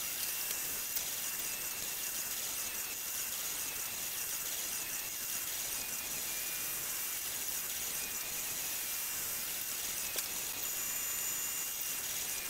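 MakerBot Replicator 2 3D printer running a print: a steady, fairly quiet hiss with a faint wavering whine and an occasional soft tick.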